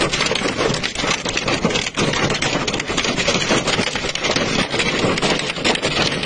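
Hail and heavy rain pelting down, a loud, dense clatter of countless small impacts over a steady rush of water.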